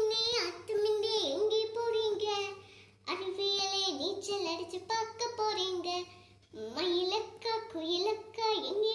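A young girl singing Tamil rhymes in phrases, pausing for breath about three seconds in and again after about six seconds.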